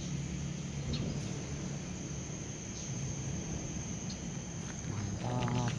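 Insects droning steadily in one high-pitched note, over a low rumble.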